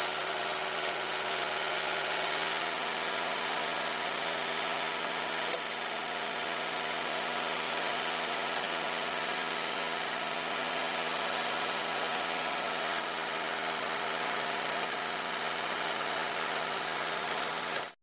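Motor running steadily at one even pitch, a constant mechanical drone; it cuts off suddenly at the end.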